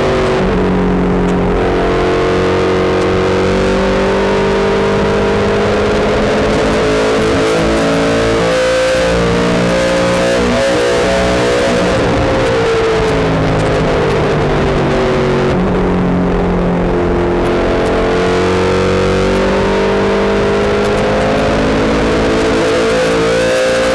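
Late-model stock car's V8 engine running at race pace, heard from inside the car. The revs drop near the start and again around the middle, then climb back up along the straights.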